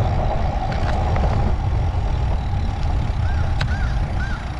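Steady road traffic with vehicle engines rumbling past, and three short high chirps about three seconds in.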